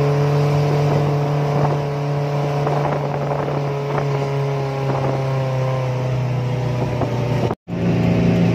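Motor vehicle engine running steadily, heard from aboard, its pitch easing down slightly, with scattered knocks and rattles from about a second to five seconds in. The sound cuts out for an instant near the end and then resumes.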